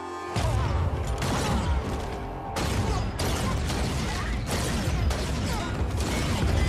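Star Wars blaster fire in a film gunfight: many blaster shots fired rapidly and overlapping. It begins abruptly about half a second in.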